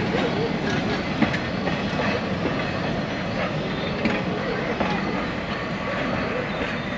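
A train of log cars, open cars and a caboose rolling past on the track: a steady rumble of wheels on rail with scattered sharp clicks over the rail joints.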